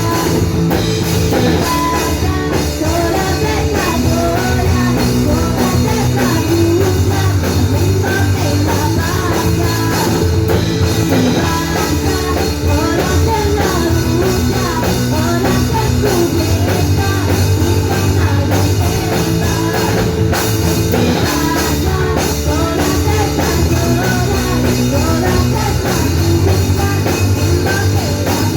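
Rock band playing live with drum kit and guitars, a steady, loud full-band passage with no breaks.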